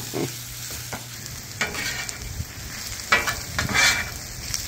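Onions, mushrooms and spinach sizzling in ghee on the hot steel top of a Traeger Flatrock gas griddle, with a metal spatula scraping and turning them several times over the steady sizzle as the spinach wilts.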